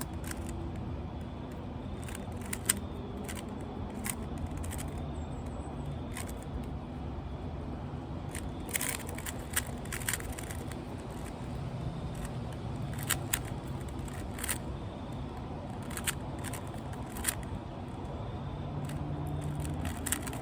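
Rubik's cube being turned fast during a speed solve: irregular plastic clicks and clacks of its layers snapping round, some in quick clusters, over a steady low rumble.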